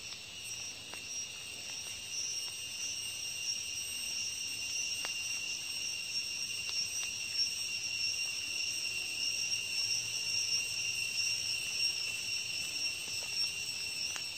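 Steady high-pitched insect chorus of crickets or cicadas, holding two constant tones. A few faint clicks and rustles come from plastic grafting tape being wrapped around a young avocado stem.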